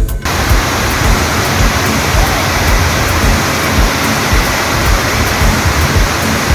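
Loud, steady rush of falling water from a waterfall, cutting in abruptly as background music stops just after the start.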